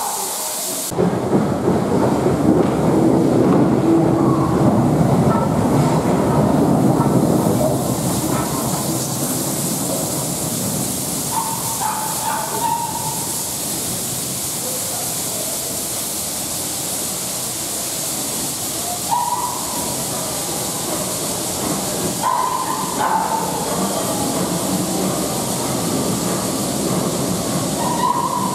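Steam locomotive and its coaches moving along a station platform: a steady rumble and hiss of steam, loudest in the first several seconds after a sudden start, with a few short higher-pitched sounds around halfway and near the end.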